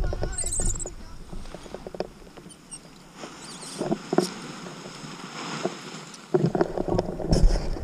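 Rustling, clicking and scraping of a tandem paragliding harness, lines and selfie-stick camera mount being handled just after touchdown on dry grass. Wind on the microphone dies away in the first second, and a few brief voice sounds come near the middle and toward the end.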